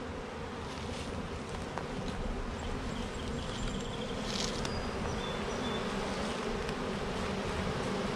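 Honeybees from a freshly installed package colony buzzing steadily in the air and over the open hive box, the buzz slowly growing louder near the end.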